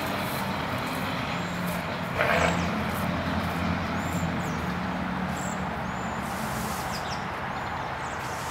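Outdoor ambience: a steady low engine hum from a vehicle, with several short high chirps from birds and a brief rustle about two seconds in.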